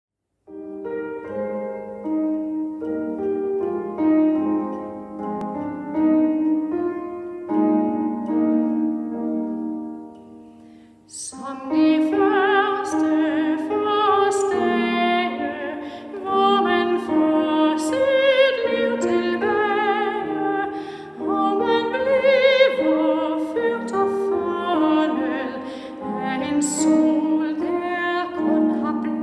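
Church organ playing the introduction to a lyrical waltz hymn in sustained chords. About eleven seconds in, a classically trained soprano comes in, singing with a wide vibrato over the organ accompaniment.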